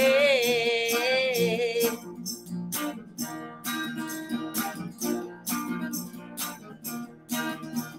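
A woman's voice holds the last sung note with vibrato for about two seconds. An electric guitar then carries on alone, strummed in a steady rhythm of about three strokes a second.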